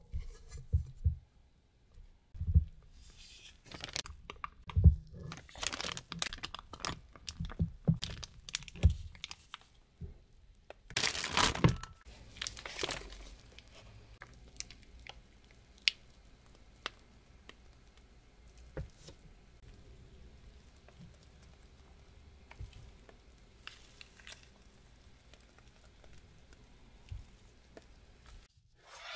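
A silicone spatula scraping and knocking thick choux dough around a stainless steel bowl, and a plastic piping bag crinkling loudly as it is handled. About halfway through, the sounds drop to faint sparse taps as the dough is piped.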